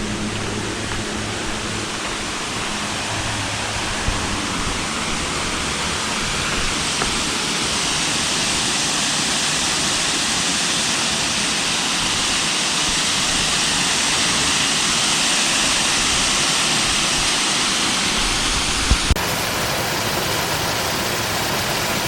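Waterfall rushing: a steady, even hiss of falling water that swells a little toward the middle and changes abruptly near the end to a brighter, thinner hiss.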